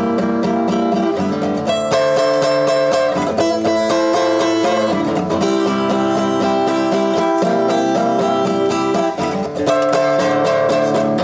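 Background music led by plucked acoustic guitar, without singing.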